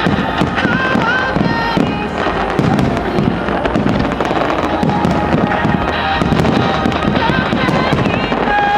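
Starmine fireworks barrage: rapid, overlapping booms and crackling bursts one after another without a pause, with music also audible.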